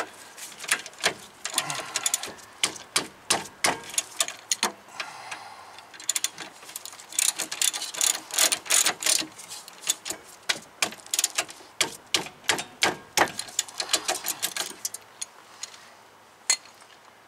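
Ratchet wrench clicking in runs of quick strokes while tightening brake caliper bracket bolts, then falling quiet near the end.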